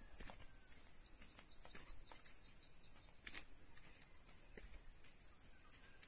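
Steady, high-pitched insect chorus, with a bird giving a quick run of short falling chirps, about five a second, from about a second in. Soft footsteps on a dirt path underneath.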